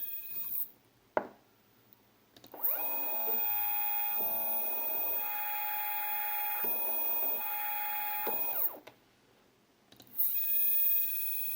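3D printer stepper motor driving an axis back and forth at speed, a stepping whine that glides up in pitch as each move accelerates and down as it slows. Motion stops twice for a second or two, with a sharp click about a second in.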